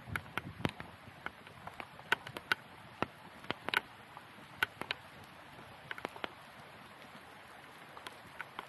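Light rain: irregular sharp taps of raindrops striking the camera, over a faint steady hiss.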